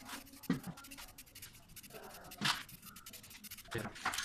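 An aerosol spray-paint can hissing in a few short bursts as paint is sprayed onto a wall, the strongest near the end.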